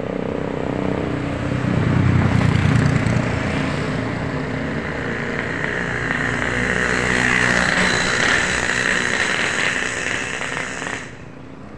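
Road traffic: a motor vehicle passing close by, its engine loudest about two seconds in, followed by a steady rush of engine and tyre noise that cuts off suddenly near the end.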